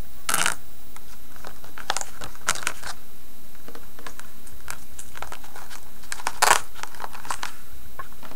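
Laminated letter pieces and pages of a workbook being handled and rearranged: a series of short rustles and clicks, the loudest about six and a half seconds in.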